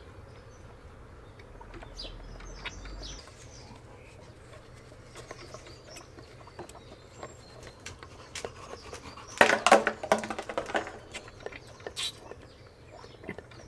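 Rapid puffing and gurgling through a rubber hose about nine and a half seconds in, lasting about a second and a half, as a small engine's diaphragm fuel pump is worked by blowing and sucking on its pulse line; the pump works. Faint bird chirps and small clicks otherwise.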